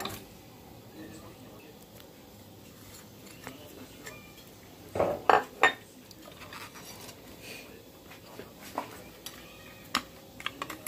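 Dishes clinking and knocking against a glass mixing bowl as grated carrot is scraped in from a plate: a sharp click at the start, a cluster of loud knocks about five seconds in, and a few lighter clicks near the end.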